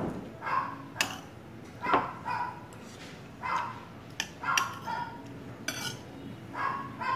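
A small dog barking off and on in short yaps, about one a second. A few sharp clinks of a spoon or fork on dishes come between the barks.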